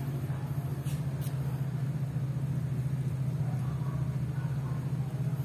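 Steady low hum, with two faint clicks about a second in.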